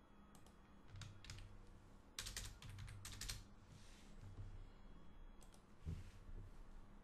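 Faint computer keyboard typing: a few single key clicks, then a quick run of keystrokes in the middle, then a couple more. A soft low thump comes near the end.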